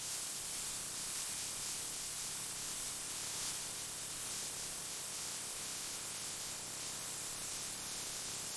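Steady, even hissing spray, strongest in the treble and unbroken.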